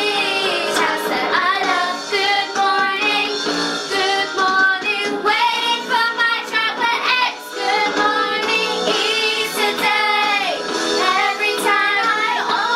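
A song played over a backing track, sung by young girls' voices, with a continuous melody.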